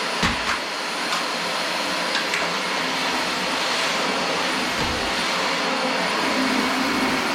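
Dyson DC25 Animal upright vacuum cleaner running steadily as it is pushed over the floor, with a faint high whine and a few small clicks in the first couple of seconds.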